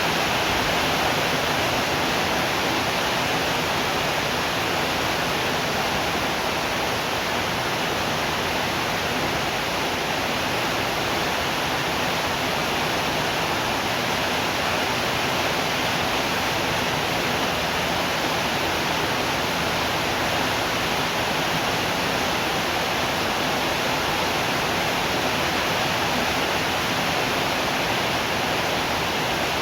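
Steady rain, an even unbroken hiss with no thunder or changes in level.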